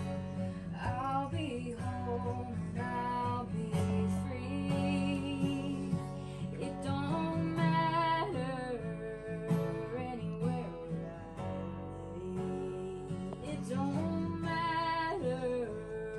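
Background music: a song led by acoustic guitar, with a singing voice.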